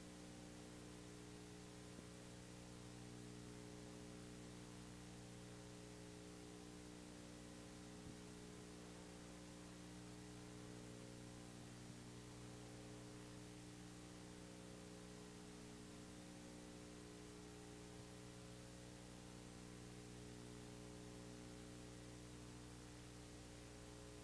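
Near silence: only a steady electrical hum with a faint hiss, and no game sound.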